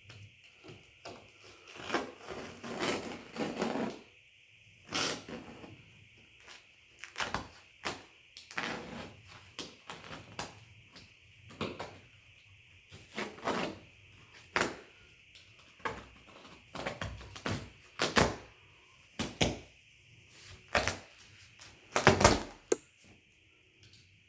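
Irregular knocks, thuds and scraping rustles of wall-to-wall carpet being pulled up and handled, one short hit about every second, with louder thuds near the end.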